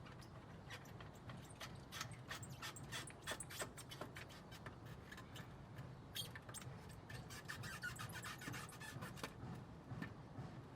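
Stock catalytic converter and exhaust section of a Suzuki GSX-R600 being wiggled back and forth and slid off: irregular metallic clicks, clanks and scrapes, over a steady low hum.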